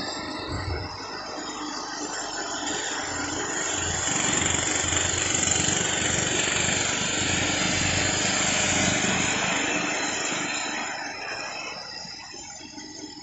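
Small petrol engine of lawn-care equipment running steadily. It grows louder through the middle, then fades away near the end.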